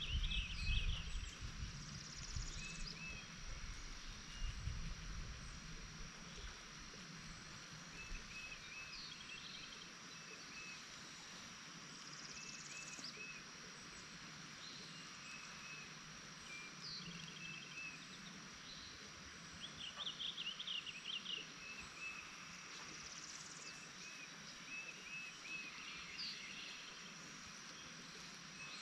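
Outdoor countryside ambience: several birds calling and chirping on and off, with short repeated notes, trills and quick sweeping calls, over a steady high insect drone. Wind rumbles on the microphone for the first few seconds.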